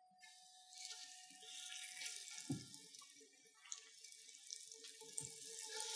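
Chicken thighs sizzling in hot oil in an enameled cast-iron Dutch oven as they are laid in with metal tongs. The faint hiss starts about a second in, with a couple of knocks from the tongs.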